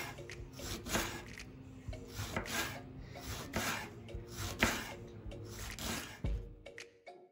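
Chef's knife slicing raw leeks into rings on a bamboo cutting board: a steady run of short cuts, each a rasp through the stalk ending on the wood. The cutting stops near the end.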